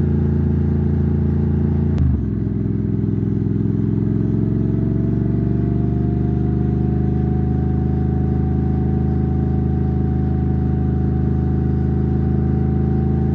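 Motorcycle engine running steadily under way. There is a sharp click about two seconds in, after which the engine note climbs slowly.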